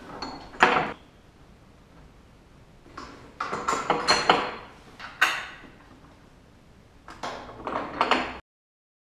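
Metal bed-frame parts clinking and rattling as they are handled and fitted onto the frame's bolts, in three short bursts of clatter with a light metallic ring; the sound cuts off suddenly near the end.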